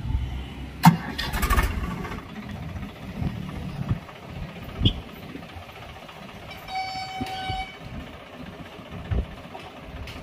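Tractor diesel engine starting, with a sharp knock and a quick run of firing pulses about a second in, then running unevenly. A horn toots once for about a second, about seven seconds in.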